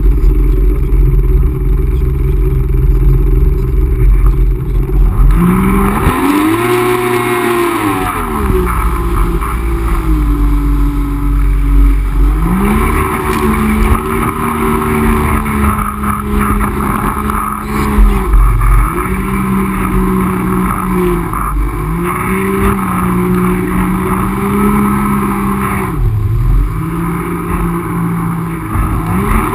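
Yamaha jet ski's two-stroke three-cylinder engine running at speed, its note rising and falling several times as the throttle is opened and eased, with water rushing and spraying past the hull.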